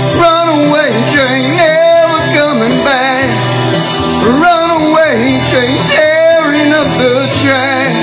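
Country-rock band music with no sung words: a wavering, bending lead melody over guitar accompaniment.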